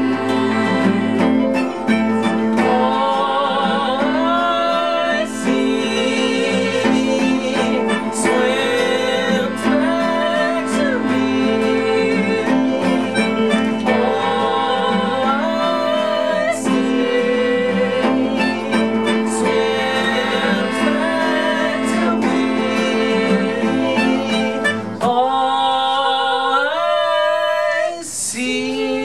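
Live band playing an instrumental passage of a song: strummed guitar with a melody line over it. The low notes drop out about 25 seconds in and come back near the end.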